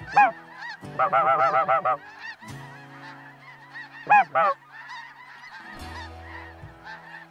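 Snow geese calling overhead: many overlapping high, yelping honks from a flock, with a loud rapid run of calls about a second in and another loud pair of calls near the middle.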